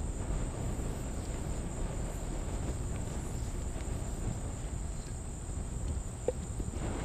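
Steady outdoor ambience: a high, even insect drone (crickets) over a low, steady rumble, with one faint tick about six seconds in.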